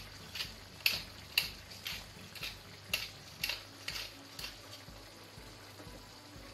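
A spoon stirring a chicken curry in a frying pan, knocking and scraping against the pan about twice a second, then stopping about four and a half seconds in.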